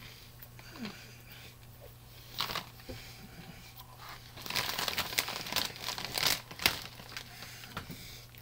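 Plastic popcorn bag crinkling as a hand rummages in it for popcorn. There are a couple of short rustles, then a longer busy stretch of crinkling from about halfway in, with one sharp snap near the end.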